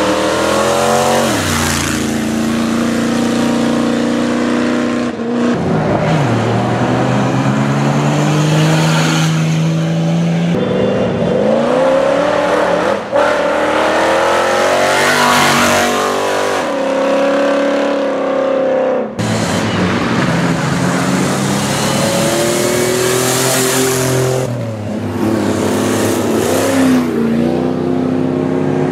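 Engines of off-road race vehicles revving hard, their pitch rising and falling repeatedly with the throttle. The sound breaks off and changes abruptly about three times.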